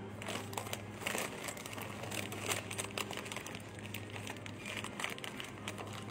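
Irregular crinkling and rustling close to the microphone, over a steady low hum.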